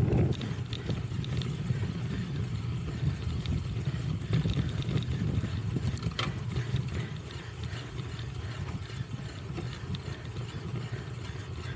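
Cyclocross bike being ridden hard: a steady low rumble of wind on the microphone and tyres rolling over rough ground, with scattered clicks and rattles from the bike.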